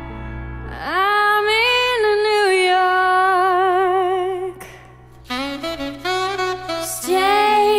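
Slow ballad music in which a saxophone plays long, wavering held notes. It pauses briefly about two-thirds of the way through, then plays a few shorter notes and settles on another long note.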